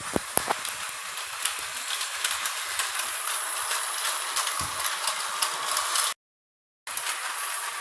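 Toy train running on its track: a steady high rattle of small wheels and motor with fine clicking, and a few sharp clicks near the start. The sound cuts out completely for under a second about six seconds in.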